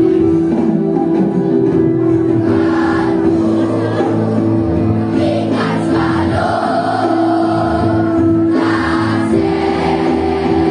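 A choir of primary-school boys and girls singing an Indonesian farewell song to their teachers, over a steady instrumental accompaniment.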